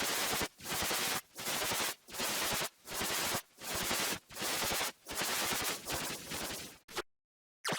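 Harsh, heavily distorted effect audio of a logo edit, chopped into a string of about nine loud crackling bursts roughly two-thirds of a second apart. Near the end it cuts to dead silence for about half a second, then starts again.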